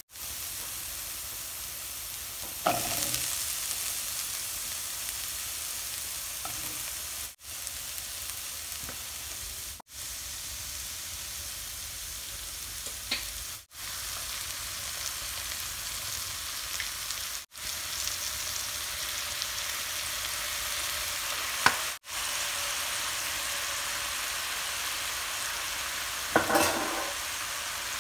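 Food sizzling steadily in hot oil in a nonstick pan: chopped aromatics, then beech mushrooms. A few short, louder clatters stand out, and the sizzle drops out briefly several times.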